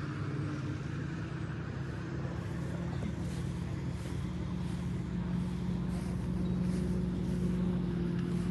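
A motor vehicle engine running steadily with a low, even hum that grows slightly louder.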